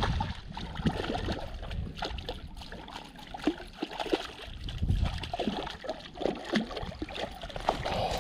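A hooked largemouth bass thrashing at the water's surface as it is reeled in, a run of short, irregular splashes.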